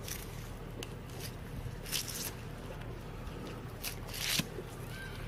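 A knife slicing through a fish's belly skin in a few short rasping strokes, the longest near the end, over a steady low rumble.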